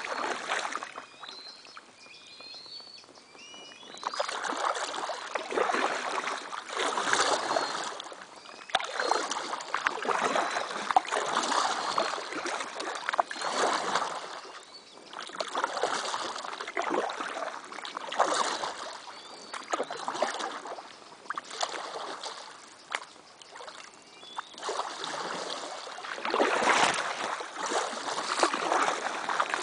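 Double-bladed paddle strokes in river water beside a canoe: a swish and splash about every two seconds, with drips between strokes. A small bird chirps in the first few seconds, and near the end overhanging willow leaves brush past the boat.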